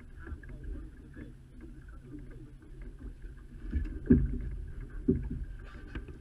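Wind and water noise aboard a small sailboat moving slowly, with two sharp knocks about four and five seconds in.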